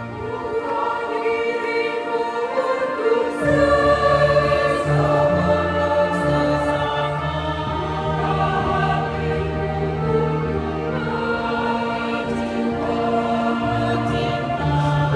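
Mixed church choir of women and men singing together in parts, held notes moving from chord to chord. A low sustained accompaniment drops out at the start and comes back in about three and a half seconds in.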